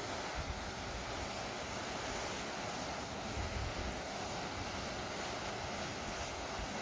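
Sea surf washing steadily along the shore, with wind rumbling on the microphone.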